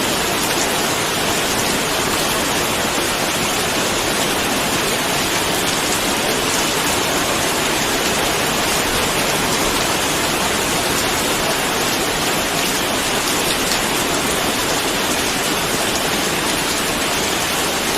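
Steady heavy rain: a dense, even hiss of falling drops, unchanging in level.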